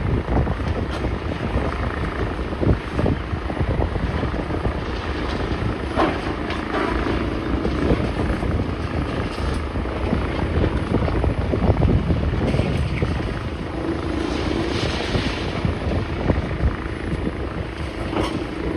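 Heavy demolition machinery running steadily, with wind buffeting the microphone. A few short knocks of debris cut through, and a steady engine hum rises out of the noise near the end.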